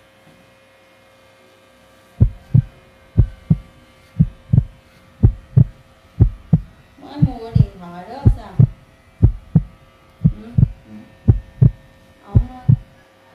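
Heartbeat sound effect: low paired 'lub-dub' thumps about once a second, starting about two seconds in. A brief voice-like sound comes in the middle.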